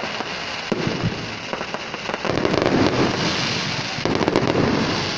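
Fireworks display going off: a dense run of crackles and pops from bursting shells, getting louder about two seconds in and staying loud.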